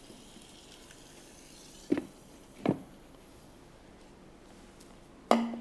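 Faint sizzle of cooking oil poured onto a live charcoal in a foil cup inside a pan, dying away after about three seconds. Two short knocks come about two seconds in, as the glass lid goes onto the pan, and a louder knock with a brief ring comes near the end.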